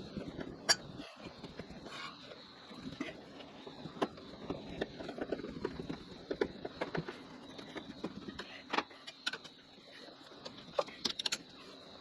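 Scattered light clicks and knocks of parts and tools being handled while a ceiling fan is installed, at irregular times over a low background hiss.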